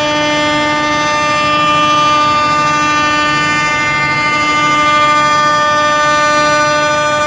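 Spindle motors of a CNC curved drawer-groove milling machine running, a loud, steady whine with many overtones.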